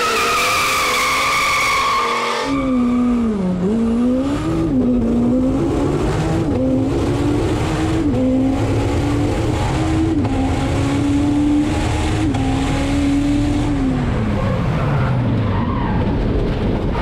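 Turbocharged Honda S2000 drag car launching hard, then heard from inside the cabin accelerating flat out through the gears: the engine note climbs and drops back at each upshift. Near the end the revs fall away steadily as the car starts to spin out.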